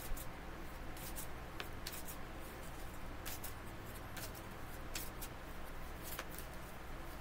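A deck of tarot cards being shuffled in the hands: a string of light, irregular clicks as the cards slide and flick against each other.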